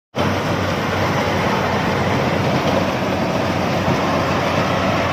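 Yanmar crawler combine harvester running steadily while cutting standing rice: engine and harvesting machinery in one loud, even din with a steady low hum underneath.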